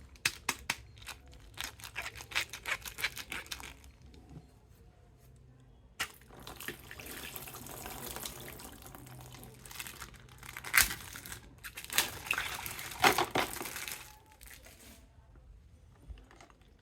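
Handling noise: a quick run of sharp clicks, then a stretch of rustling, crinkling noise with a few louder crackles.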